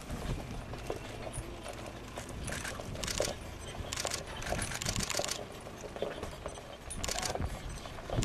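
Komatsu Light Armored Vehicle moving slowly, its diesel engine running low under short metallic clatters and jingles from its snow-chained tyres rolling over gravel and mud.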